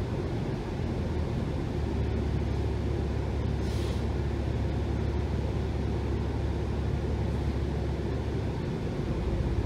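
New Flyer XDE60 diesel-electric hybrid articulated bus under way, its Cummins L9 diesel and hybrid drive giving a steady low drone that shifts in pitch about a second in and again near the end. A short hiss of air comes about three and a half seconds in.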